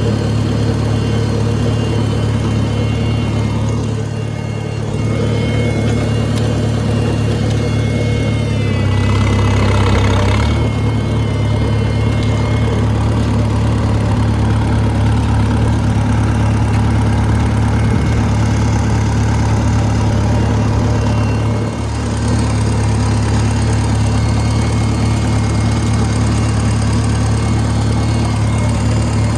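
Oliver Super 66 tractor engine idling steadily, briefly a little louder about nine to ten seconds in.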